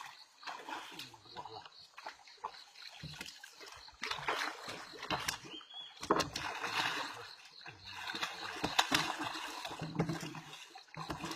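Water splashing and sloshing beside a small boat in irregular bursts, growing louder about a third of the way in, with a few sharp knocks.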